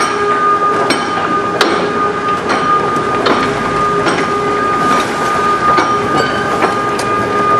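Baler in-feed conveyor, driven by a 7.5 horsepower three-phase electric motor, running steadily with a constant whine and irregular clicks and clatters.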